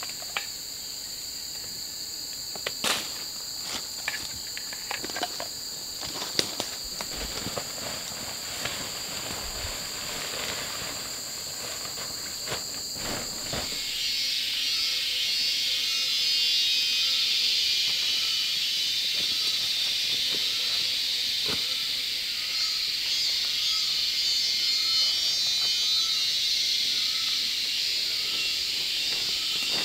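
Forest insects calling steadily, two high continuous tones, with scattered clicks and knocks over them in the first half. About halfway the sound changes abruptly to a louder, hissing insect chorus, with a faint lower chirp repeating about once a second.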